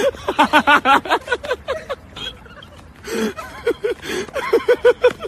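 Laughter in quick, rhythmic ha-ha bursts, loudest near the start and again near the end, with a louder cry about three seconds in.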